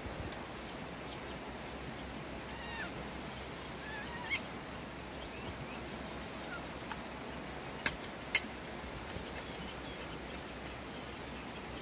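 Monkey giving two short, high squeals, about three and four seconds in, over a steady outdoor hiss. Two sharp clicks follow near eight seconds.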